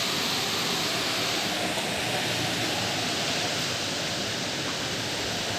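Storm wind rushing steadily through the crowns of tall trees, a continuous droning hiss of tossing leaves.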